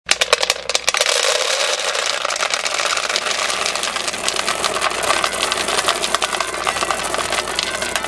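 Dry dog kibble poured into a glossy dog bowl. A few separate clicks as the first pieces hit the empty bottom, then a dense, steady rattle of pellets as the bowl fills.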